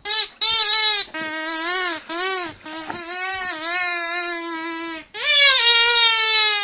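A dog whining and howling in a run of long, wavering, high-pitched calls with short breaks between them.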